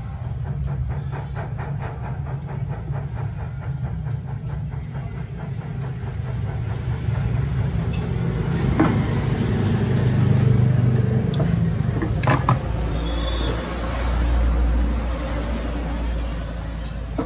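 Jeweller's torch flame blowing with a steady low rush as it heats a gold wire. About twelve seconds in it gives way to a deeper steady hum, with a couple of sharp knocks.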